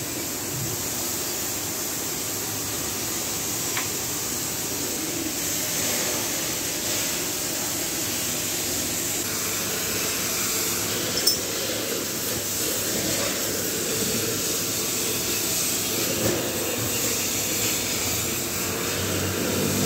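Steady workshop background noise: an even hiss with a faint low hum, and a couple of brief faint ticks.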